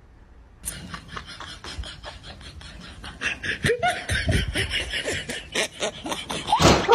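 A person laughing in quick, breathy bursts that start about half a second in and grow louder after about three seconds.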